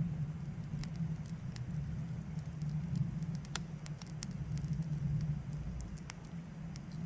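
Wood fire in a fire pit crackling, with irregular sharp pops from the burning log, over a steady low rumble.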